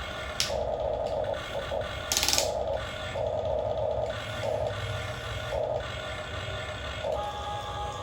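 Small electric gear motors of an RC excavator whirring in repeated short bursts, starting and stopping, with a brief sharp rattle about two seconds in.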